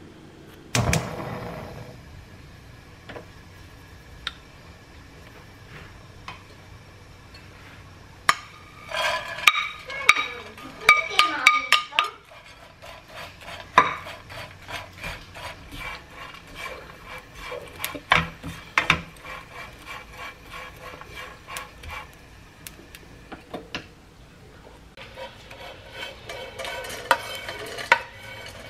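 Dried anchovies being stirred and tossed with a wooden spoon in a dry nonstick frying pan: a long run of quick, light clicks, rattles and scrapes of the little fish against the pan. Near the end the clatter gets busier as they are scraped out into a metal mesh strainer; at the start there are a few snips of kitchen scissors cutting dried persimmon.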